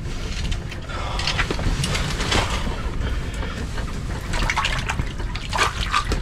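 Water splashing and dripping in an ice-fishing hole as a walleye is pulled up through it, with scattered sharp splashes over a steady low rumble.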